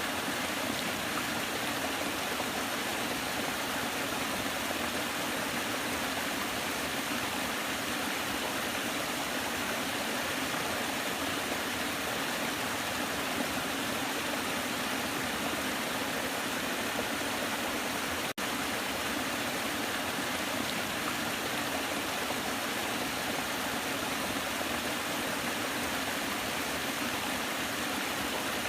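Waterfall rushing: a steady, dense hiss of falling water with little bass. It cuts out for an instant about two-thirds of the way through, like an edit splice.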